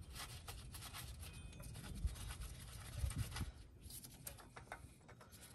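Faint irregular clicks and rubbing of a gloved hand threading in and snugging a bolt on a newly fitted oil pump, metal parts touching lightly.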